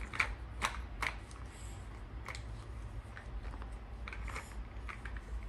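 Plastic Play-Doh toy parts being handled: a few light clicks and taps at irregular intervals.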